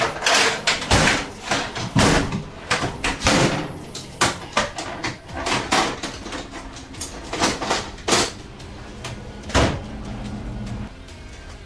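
Steel tool-chest drawers sliding open and shut, with tools clattering inside them: a string of sharp knocks and clanks, busiest in the first few seconds.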